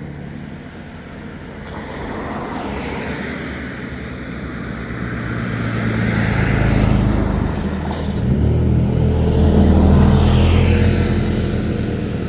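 Motor vehicles passing close by on a road, engine and tyre noise swelling and fading: one about halfway through and another a few seconds later.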